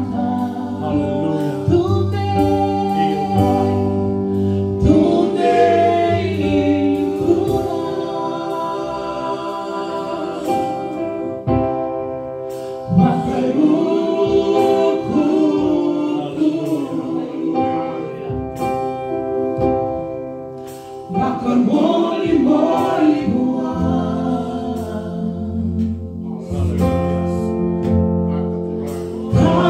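Live gospel worship music: a woman sings a Fijian hymn while playing an electronic keyboard, backed by a drum kit and electric bass.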